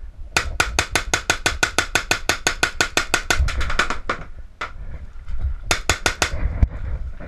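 Paintball marker firing in rapid bursts: a long string of about eight shots a second for some three and a half seconds, then a single shot, a short burst of about five, and one last shot near the end.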